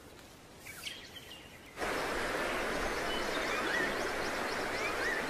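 Quiet for about two seconds, with a few faint chirps. Then a steady rush of flowing river water starts abruptly, and over it a bird repeats a short rising-and-falling whistle about once a second.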